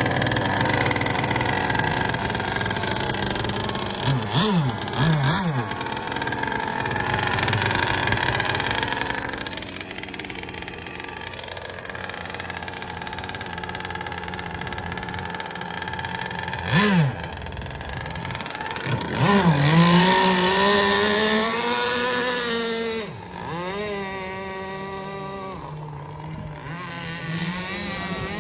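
Gas-powered RC boat's two-stroke engine running on the water, its pitch rising and falling as the throttle is worked several times. It is loudest when revved about two-thirds of the way through.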